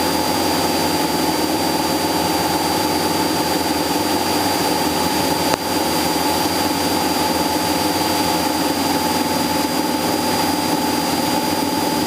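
Cessna 172SP's four-cylinder Lycoming engine and propeller droning steadily in flight, with a thin, steady high whine over it. A single click a little past halfway.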